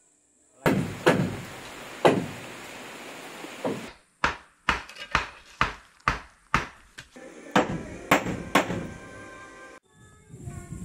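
A series of hard knocks like hammer blows, about a dozen, spaced irregularly and coming two or three a second in the middle stretch, with short breaks where the sound cuts away.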